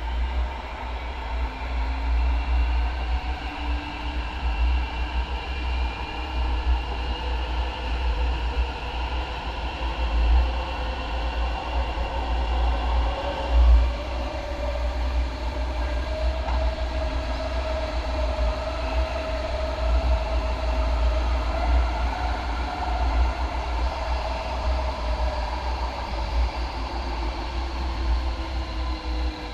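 MAX light rail train running along the track: a steady low rumble, with a whine from the electric drive that rises in pitch through the middle and falls away near the end.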